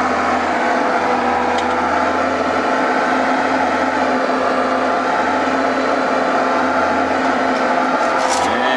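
Case 325 articulated dump truck's diesel engine running at a steady pitch while the truck drives, heard from inside the cab.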